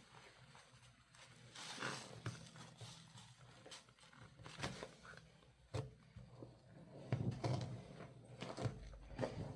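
Soapy, wet pink laundry being squeezed and worked by hand, in irregular squishing and squeaking strokes with a few sharp clicks, busier in the second half.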